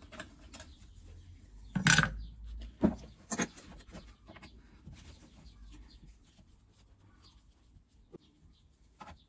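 Clicks and knocks of gloved hands and a small tool against metal on a Stihl MS 660 chainsaw's clutch side as a metal cover is worked off, with the loudest knock about two seconds in and a few sharp clicks after it.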